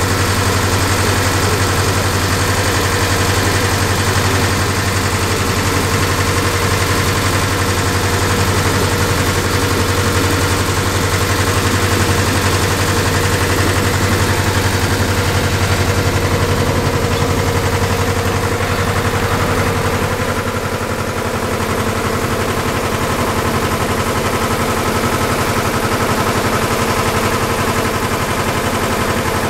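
Tour boat's engine running steadily, a loud continuous low drone with a fast even beat, dipping slightly about twenty seconds in.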